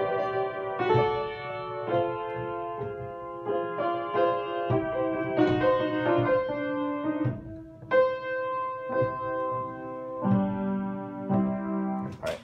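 Kohler & Campbell piano played by hand: chords and notes struck about once a second and left to ring.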